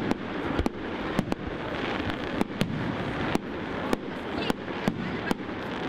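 Fireworks going off: about a dozen sharp, irregularly spaced bangs and pops over a few seconds, over steady background noise.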